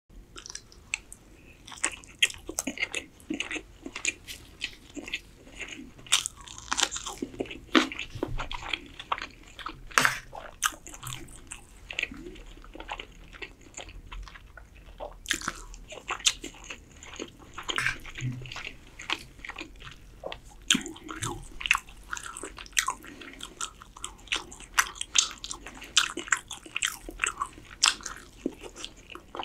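A person chewing and biting into chicken and spiced rice, with many irregular sharp wet mouth clicks.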